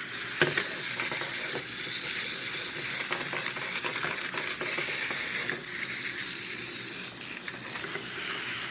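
Several small wind-up toys running at once, their clockwork motors whirring together into a steady fizzing hiss dotted with tiny clicks and clatters.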